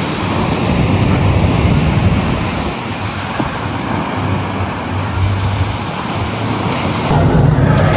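Ocean surf washing in steadily, with wind buffeting the microphone in low, rumbling gusts.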